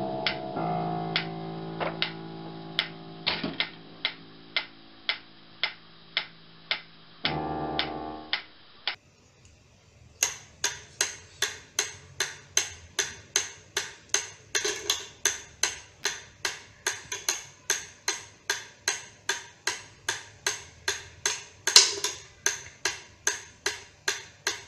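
Mechanical pendulum metronome ticking steadily, at first about one and a half ticks a second under sustained piano notes from a cat stepping on the keys. After a short pause, a faster metronome tick of about two and a half a second, with one louder click near the end.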